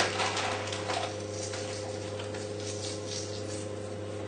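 Quiet kitchen room sound: a steady low hum with faint small clicks and handling noises, and one sharper click right at the start.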